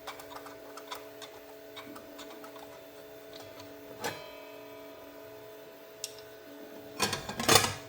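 Small clicks and handling noises as a dust-collection attachment is taken off a miter saw, with one sharp clink that rings briefly about four seconds in and a louder clatter near the end.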